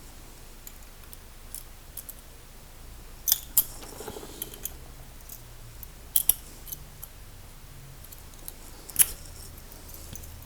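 Scattered sharp metallic clicks and small rattles of a key being worked in an American Lock 1106 padlock, a few pairs of clicks a few seconds apart. The key will not turn at all: the lock is jammed after a faulty reassembly.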